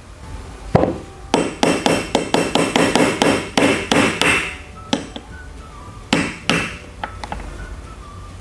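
Zippo lighter's lid and hinge giving a quick run of sharp metallic clicks, about three or four a second, then a few single clicks, as the hinge is being adjusted to tune the lid sound.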